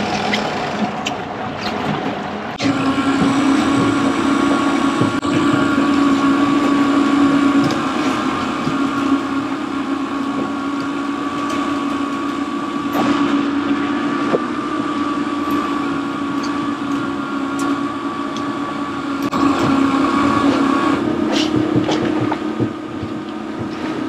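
Fishing boat's engine running steadily at low speed, a constant hum of unchanging pitch that grows louder about three seconds in, over the wash of water and wind.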